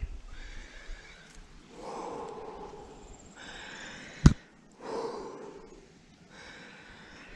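A rock climber breathing hard while climbing, with long breaths in and out roughly once a second. One sharp knock, the loudest sound, comes a little past four seconds in.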